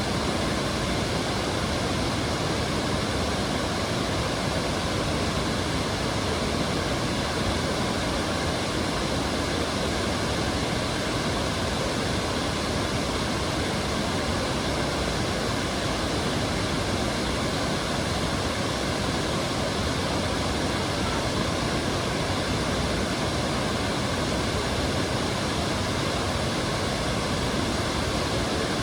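Skradinski Buk waterfall on the Krka River, water pouring and splashing over the cascades in a steady, unbroken rush.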